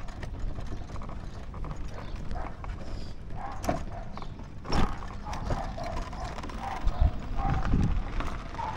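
Small motorbike engine puttering at low speed, with rumbling wind and handling noise on a camera mounted by the handlebar mirror. Two sharp knocks come a little under four and five seconds in.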